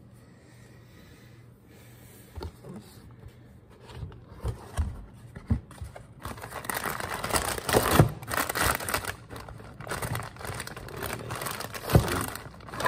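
A cardboard box of frozen battered cod being opened and handled: a few light knocks, then from about halfway in steady rustling of the packaging and plastic wrapping, with a couple of sharper thumps.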